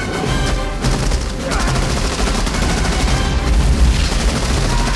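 Film battle sound effects: dense, rapid automatic gunfire over a heavy low rumble.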